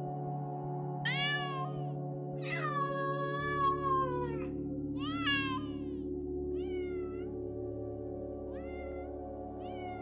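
A kitten meowing about six times, the second meow long and drawn out, over soft ambient music with steady held tones.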